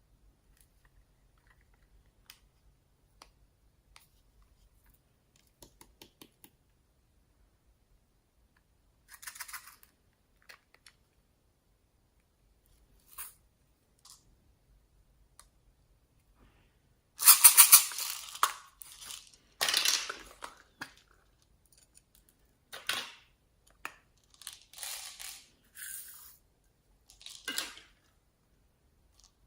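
Glossy slime being squeezed and pressed by hands, with small sticky clicks at first and then louder crackly squelches in short bursts from about halfway on.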